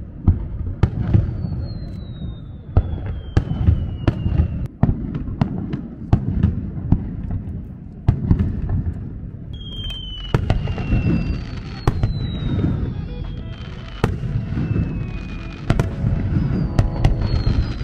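Fireworks display: a continuous run of booms and sharp crackling bangs over a low rumble, with several long whistles that fall steadily in pitch.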